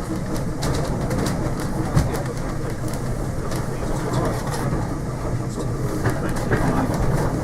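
Steam Rail Motor No 93 running along the line, heard on board: a steady rumble with scattered clicks and knocks from the wheels on the track, one louder knock about two seconds in.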